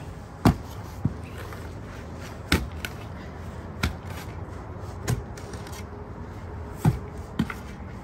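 A pointed steel shovel chopping into root-bound sod and soil, about seven sharp strikes a second or so apart as the blade cuts through tree roots.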